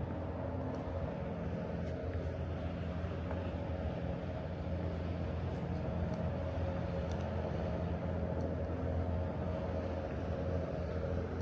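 Steady low mechanical hum with a constant droning pitch, over outdoor city background noise.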